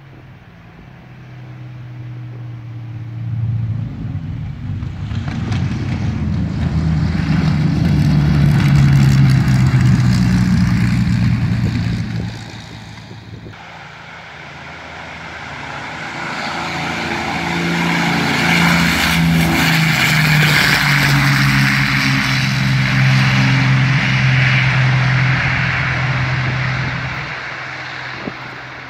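The twin Rolls-Royce Merlin V12 engines of a de Havilland Mosquito run loud as the aircraft passes by. The sound swells and fades, breaks off abruptly about halfway, then swells to a long loud stretch and fades again.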